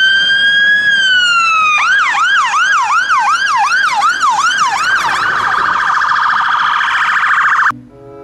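Fire engine siren cycling through its tones: a slow wail that rises and then falls, then a fast yelp sweeping up and down about three times a second, then a rapid warble that cuts off suddenly near the end.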